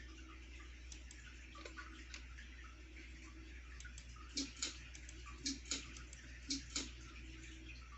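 52-inch Gulf Coast Stratus ceiling fan running with a low steady hum. About halfway in, a sharp double tick comes three times, about once a second.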